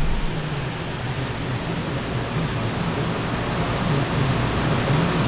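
Steady rushing noise with a low, wavering hum underneath.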